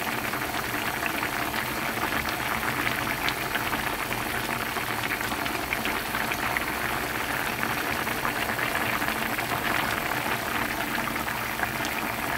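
A pan of Korean soft tofu stew (sundubu-jjigae) boiling hard: a steady bubbling with many small pops.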